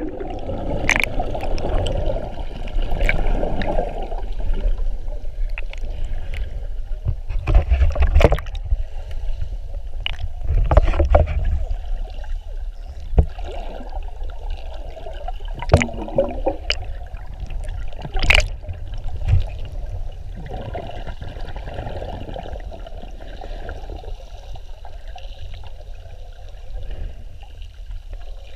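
Muffled underwater sound of water rushing around a submerged camera as a swimmer strokes along: a steady low rumble with surges of swishing, and a few sharp clicks and knocks.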